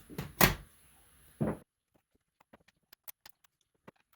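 Hand disassembly of a laptop: a few sharp knocks of the case and parts being handled in the first second and a half, then faint irregular small clicks of screws being worked out with a screwdriver.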